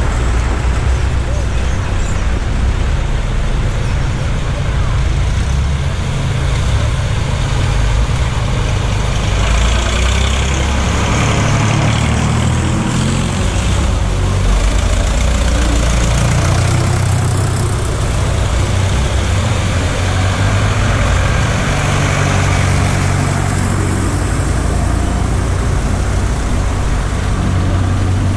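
Vintage tractor engines running as the tractors drive through a shallow ford, with water splashing and churning from the wheels, loudest about a third of the way in as a tractor crosses.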